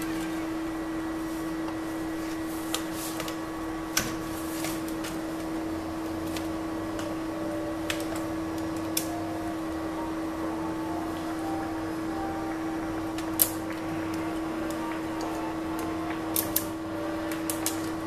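Scattered light clicks and taps of a screwdriver and plastic laptop parts being handled, over a steady hum. The clearest click comes about thirteen seconds in, with a few quick ones near the end.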